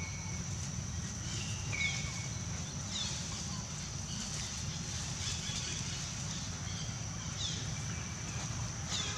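Outdoor forest ambience: a steady high-pitched whine over a low rumble, with a few short, sharp chirps, some falling quickly in pitch, every couple of seconds.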